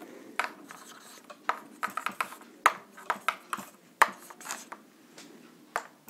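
Marker pen writing on a whiteboard: a string of short, irregular taps and scraping strokes as letters and dashes are drawn.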